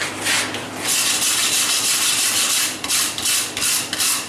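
Hand wire brush scrubbing forge scale off a glowing hot forge-welded cable billet on the anvil. It starts as fast, nearly continuous scrubbing, then breaks into separate strokes about three a second near the end.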